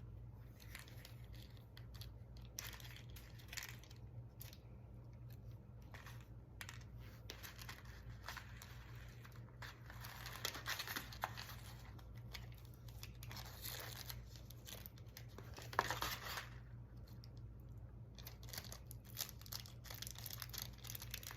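Faint rustling, crinkling and small clicks of craft materials being handled, with louder rustles about ten and sixteen seconds in, over a steady low hum.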